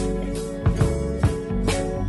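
Background music: an instrumental passage with guitar over a steady drum beat.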